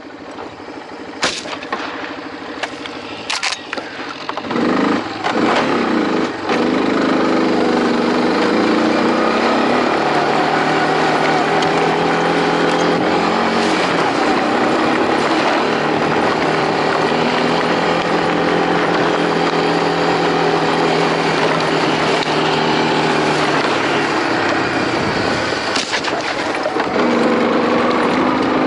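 Off-road bike's engine running. After a couple of sharp knocks early on, it revs up about four to five seconds in and then keeps running steadily under way, its pitch shifting a little. It eases off briefly near the end before picking up again.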